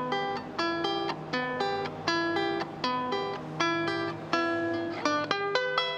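Venezuelan cuatro strummed in a steady rhythm, a new chord roughly every three-quarters of a second.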